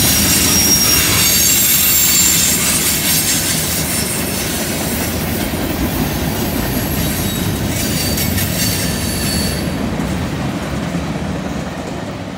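Freight cars of a mixed freight train rolling past on a curve: steady rumble and clatter of steel wheels on rail with high, thin wheel-flange squeal. About ten seconds in, the squeal stops and the sound begins to fade as the end of the train passes and draws away.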